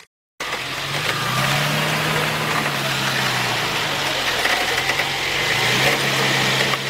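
Engine of a mud-covered off-road 4x4 running under load, its revs rising and falling a little at several points, over a steady rushing noise. The sound cuts in after a brief moment of silence at the very start.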